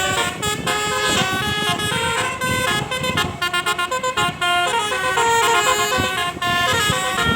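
Indonesian bus telolet horns playing melodic tunes, the notes stepping up and down several times a second, with more than one horn sounding at once.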